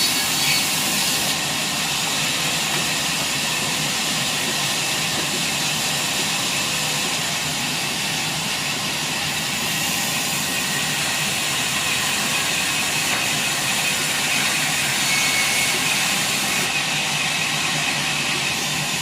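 Sawmill machinery running steadily, a continuous loud hissing whine with no breaks.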